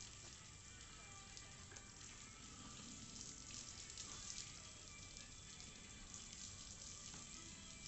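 Near silence: a faint, even crackling hiss of background ambience, with no distinct event.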